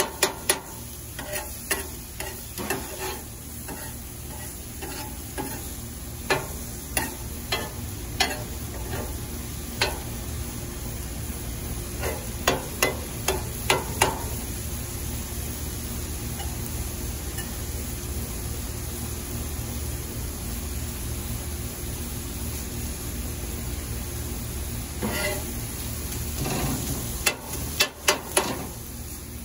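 Flat metal spatula scraping and clacking against a cast iron griddle as sliced steak sizzles on it. Clusters of sharp clacks come near the start, in the middle and near the end, with steady sizzling between them.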